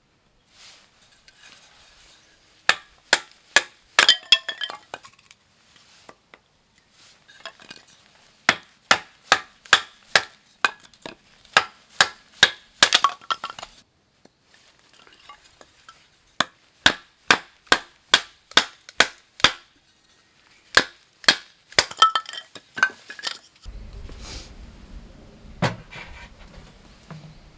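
Chopping on a cutting board: runs of sharp knocks at about two a second, with clinks of dishes and utensils between them. In the last few seconds a low steady rumble takes over.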